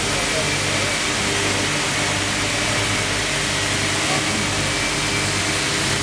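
Oil-sealed vacuum pump running steadily, a constant hum under a hiss, as it pulls a vacuum down on the sleeve.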